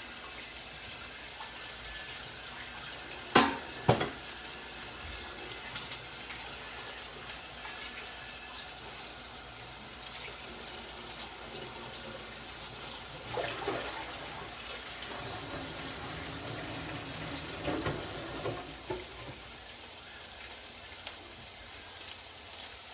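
Chopped onions frying in olive oil in a stainless steel sauté pan over high heat, with a steady sizzle. Two sharp knocks come about three and a half and four seconds in.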